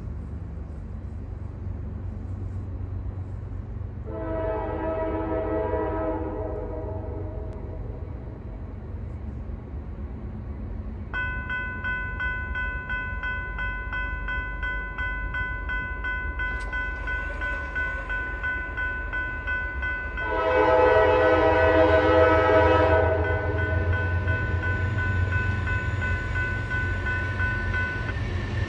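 Nathan K5LA five-chime air horn on a GE ES40DC locomotive sounding two blasts, one about four seconds in and a louder one around twenty seconds in, over the low rumble of the approaching train. From about eleven seconds a steady high ringing tone joins in underneath and runs almost to the end.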